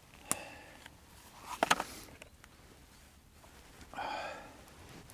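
Knife clicks and scrapes as butter and cheese are cut and put on a small loaf of campfire bread: a single tap about a third of a second in, a quick cluster of sharp clicks near the middle, and a short rasp about four seconds in.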